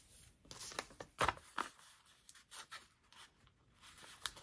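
Paper and sticker sheets being handled: short rustling and peeling noises with a few light clicks, the sharpest about a second in.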